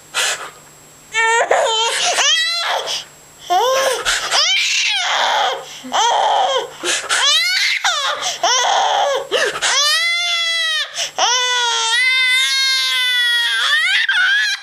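Baby girl laughing in high-pitched squeals and shrieks, ending in two long drawn-out squealing laughs.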